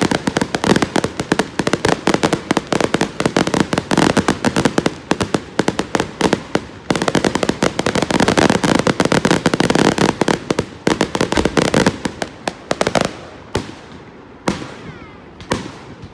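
Fireworks display: a dense barrage of shell bursts and crackling, many bangs a second. About thirteen seconds in it thins out to a few separate bangs.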